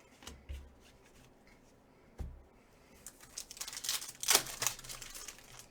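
A few light taps, then a foil trading-card pack wrapper being torn and crinkled for a couple of seconds in the second half.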